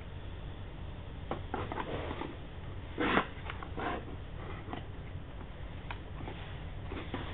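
Handling noise of a plastic netbook in its cardboard box: short knocks and rustles of the casing against cardboard as it is set down and its lid opened, with one louder knock about three seconds in, over a steady low hum.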